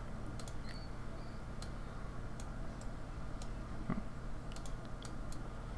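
Computer mouse clicking now and then, about a dozen light irregular clicks, over a steady low hum of room tone, with a soft knock about four seconds in.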